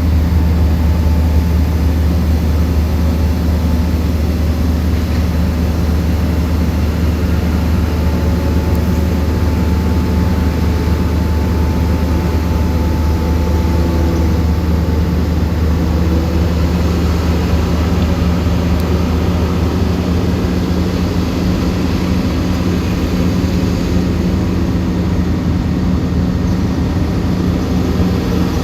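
Komatsu D68ESS crawler bulldozer's diesel engine running steadily, a deep, even drone that holds the same pitch and level throughout.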